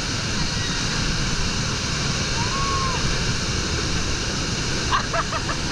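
Bridal Veil Falls pouring down at close range: a steady, heavy rush of falling water and spray.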